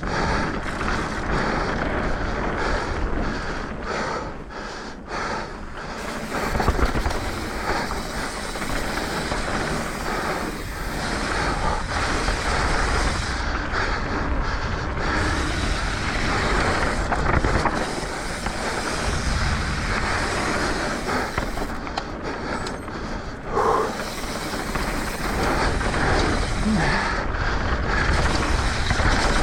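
Mountain bike riding fast down a dirt trail: tyre noise on dirt, the rattle of the bike, and wind buffeting the action-camera microphone.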